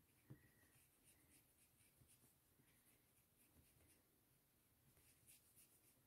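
Near silence, with faint soft strokes of a paintbrush on watercolour paper as short grass strokes are laid in, and a couple of tiny ticks.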